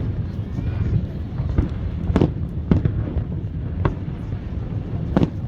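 Aerial fireworks shells bursting in a display: about five sharp bangs at irregular intervals over a steady low rumble.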